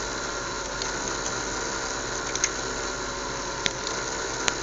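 Small fischertechnik electric motor running steadily with a propeller, a continuous whirring hum, with a few sharp clicks scattered through it.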